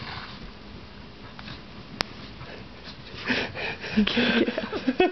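Dog sniffing and nosing at a blanket, with a sharp click about two seconds in. From about three seconds in comes a louder string of short dog vocal sounds.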